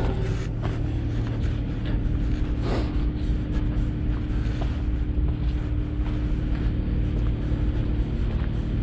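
Vehicle engine running steadily: a low rumble with a steady hum over it and a few faint ticks.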